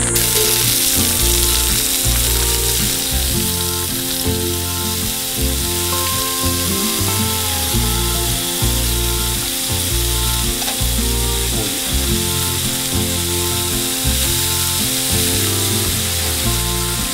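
Broad beans sizzling as they fry in hot oil in a black metal pan. The sizzle starts suddenly, over background music with a steady low bass.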